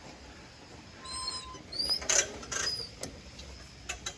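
A few short, high-pitched bird chirps, one about a second in and several close together around the middle.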